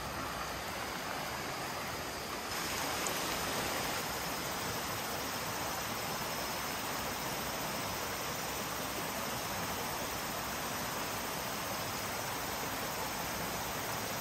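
Rocky stream flowing, a steady rush of water that gets a little louder about two and a half seconds in.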